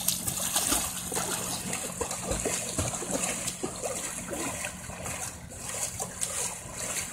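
Lake water splashing and lapping as a swimmer paddles and kicks close to a wooden dock, with many small irregular splashes and trickles.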